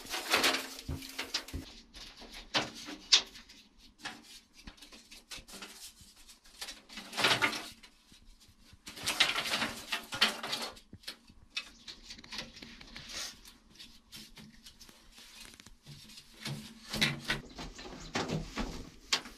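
Split bamboo slats clattering and scraping against each other and the packed-earth floor as they are handled and laid side by side, in irregular bunches of knocks with pauses between.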